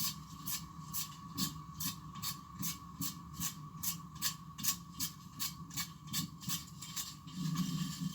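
Cloth or wipe rubbing over a smartphone's glass in quick, even back-and-forth strokes, about two to three a second, cleaning off dust before a protective film goes on.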